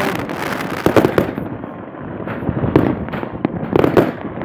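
Many fireworks and firecrackers going off across a city at New Year: a constant crackling din with irregular sharp bangs, the louder ones about a second in, near three seconds and near four seconds.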